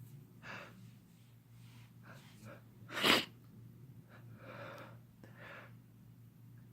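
A man's induced sneeze: a few catching breaths build up, one sharp, loud sneeze comes about three seconds in, then two heavy breaths follow.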